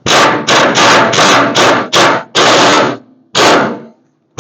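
Power impact tool firing in about eight short bursts in quick succession, a little over two a second, with a pause near the end, hammering at a 1968 Mustang's rusted upper control arm fasteners to break them loose.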